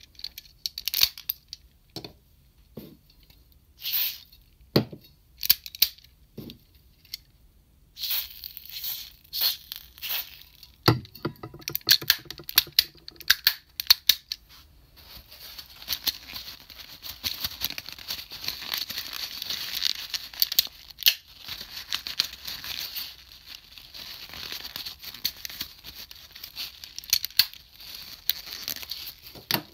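Hard plastic toy parts clicking and knocking as they are handled and pulled apart. From about halfway through, a continuous papery rubbing and rustling as kitchen paper wipes over the plastic.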